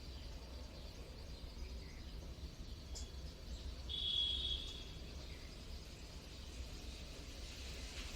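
Outdoor background noise with a steady low rumble. There is a single click about three seconds in and a short high-pitched chirp a second later.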